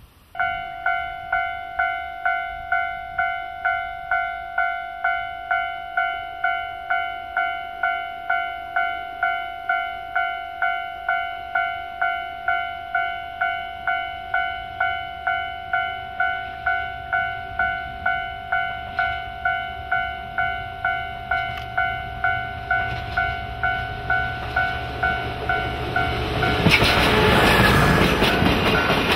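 Railway level-crossing warning bell ringing steadily, about three strikes every two seconds. Near the end a DE10 diesel locomotive hauling the Maya 34 track inspection car passes close by, loud with engine and wheel noise.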